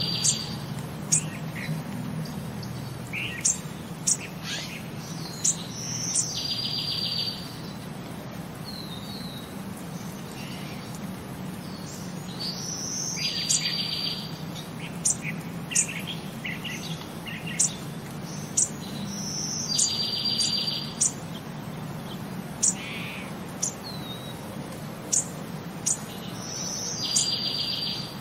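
Birdsong: a high trilled phrase comes back about every seven seconds among short sharp chirps, over a steady low hum. The even repetition marks it as a looped nature-sound track.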